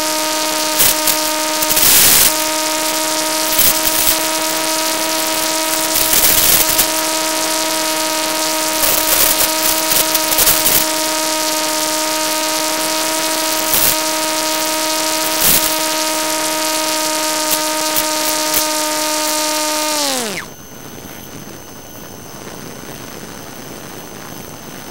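Electric motor and pusher propeller of a Bixler RC plane whining at a steady pitch at constant throttle, with repeated bursts of crackle. About twenty seconds in, the whine glides sharply down and stops as the throttle is cut, leaving a quieter hiss.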